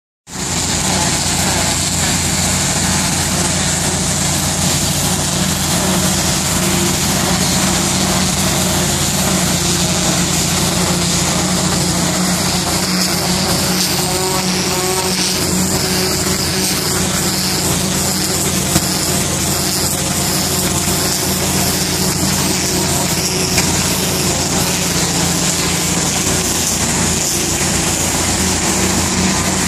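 A heavy engine running steadily with a low, even hum, under a loud constant hiss.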